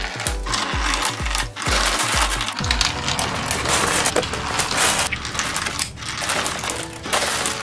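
Many small gumballs clattering and rattling as they are poured into toy gumball machines, a dense run of hard little clicks with a few brief pauses. Background music with a pulsing bass plays under it during the first few seconds.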